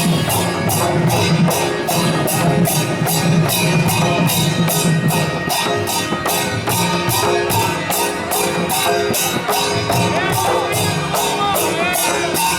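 Loud music with a steady beat, a crisp high percussion hit marking it about three times a second.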